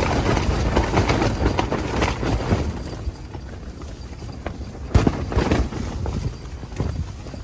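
Strong wind buffeting the microphone with a low rumble, and rooftop tent fabric flapping and snapping in rapid irregular knocks. The gusts ease about three seconds in, and there is one sharp loud snap about five seconds in.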